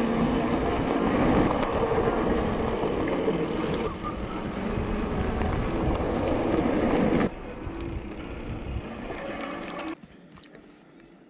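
Wind and tyre noise from riding a mountain bike over a rough track, picked up by a camera on the rider. The sound changes abruptly about four and seven seconds in, and drops much quieter near the end.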